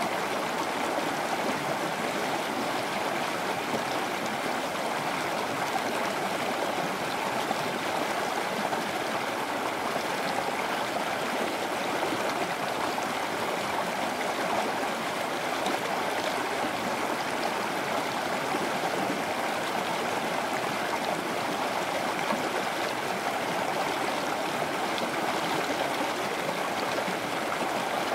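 Rushing water of a cascading stream: a steady, even rush with no let-up or change.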